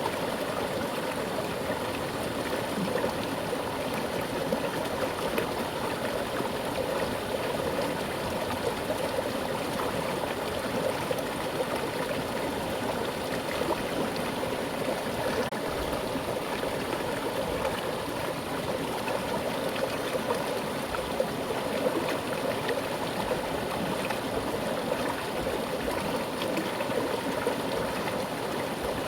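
Mountain stream running with a strong current, a steady rush of water over rocks.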